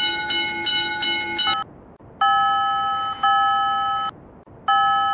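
Railroad crossing warning signal: a fast repeating electronic ding, about three a second, stops about a second and a half in. After a short gap come long held electronic chime tones that step slightly in pitch, break off, and start again near the end.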